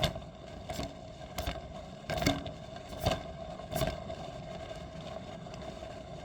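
Ceiling fan running fast and wobbling out of round, with a steady hum. Six sharp clicks come about every three-quarters of a second over the first four seconds, then only the hum remains.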